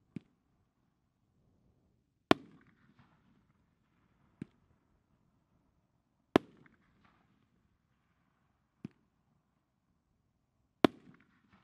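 Bada Boom 'Tommy Gun' firework shots going off three times, about every four seconds: each time a lighter launch thump, then about two seconds later a much louder bang as the shell bursts, with a short crackling tail.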